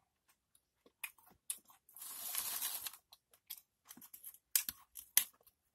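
Doritos tortilla chips rustling and crackling as a hand handles them and dips one, with a run of sharp cracks and clicks in the last two seconds.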